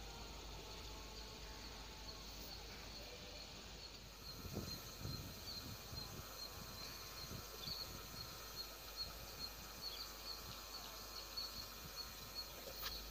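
Faint outdoor ambience: an insect chirps in a rapid run of high pips starting about a third of the way in, with a few soft low thumps.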